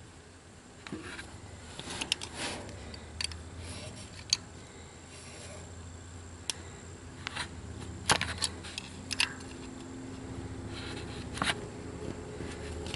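Scattered small metal clicks and short scrapes of a small wrench and fingers working the breaker-points hold-down screw inside a distributor, over a low steady hum.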